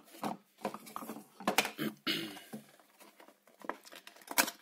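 A small white cardboard box being handled: scrapes and rustles with a few sharp knocks and taps of the cardboard. The loudest knocks come about a second and a half in and near the end.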